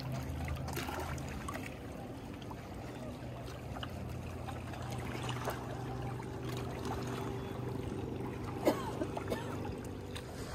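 Water lapping and trickling at a reservoir's edge over a steady low hum, with small clicks and one sharp knock about eight and a half seconds in.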